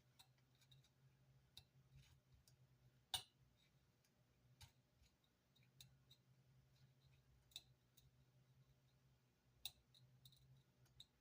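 Faint, irregular small clicks and ticks of a razor blade flicking wood and glue remnants off amplifier grill cloth, with one sharper click about three seconds in, over a faint low hum.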